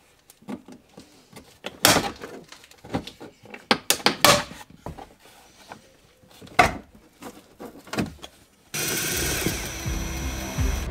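Plastic interior trim clips in a car cabin snapping and knocking as the pillar trim panels are pried loose: a few sharp separate clicks and knocks. Background music comes in suddenly near the end.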